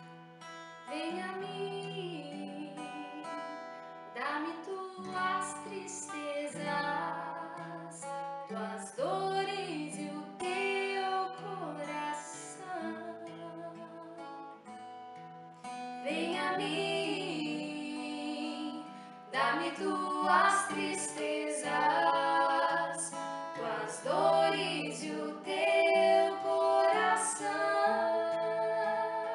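Acoustic guitar accompanying women singing a Catholic worship song, one voice taking the lead mid-way and two voices singing together near the end. The music grows louder about halfway through.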